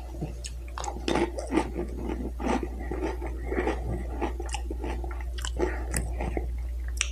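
A person chewing a Doritos tortilla chip dipped in cream cheese: a bite near the start, then many irregular crunches, over a steady low hum.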